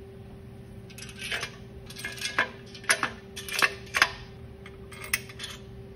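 Steel main-cap bolts clinking against each other and against the aluminum LS1 block and its main caps as they are handled and set in place: a string of sharp metallic clinks, loudest about three and four seconds in, over a steady shop hum.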